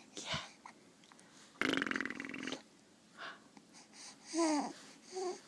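A young child making a buzzy, raspy snorting noise for about a second, then a short vocal sound falling in pitch.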